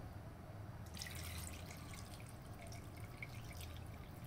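Water poured from a glass jug into an aluminium pot of meat and broth, a faint splashing trickle that starts about a second in.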